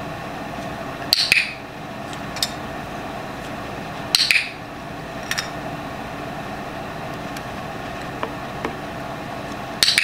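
Three short crackling clicks, a few seconds apart, with a few fainter sharp ticks between them, over a steady low hum.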